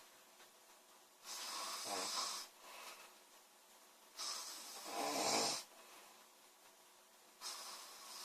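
A woman snoring in her sleep: three noisy breaths about three seconds apart, the one about halfway through the loudest and deepest.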